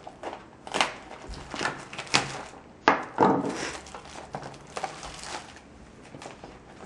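A trading-card box being cut open and handled with a dull knife: irregular scraping, crinkling and clicks. A sharp knock comes about three seconds in, followed by a longer scrape.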